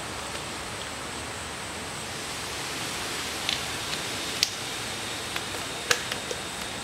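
Steady background hiss, with a few light clicks scattered through the second half.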